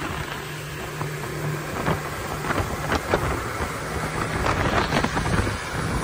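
Twin outboard motors of a speedboat running at speed with a steady drone, under a rush of water past the hull and wind buffeting the microphone. The wind and water noise grows louder toward the end.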